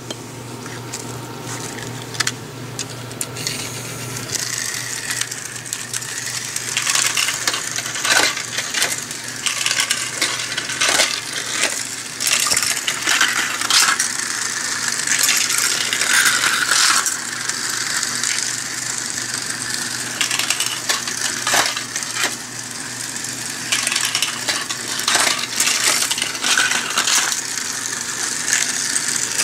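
Battery-powered toy cars running along flexible plastic track: a steady high whir with frequent irregular clicks and clatter, building up about four seconds in.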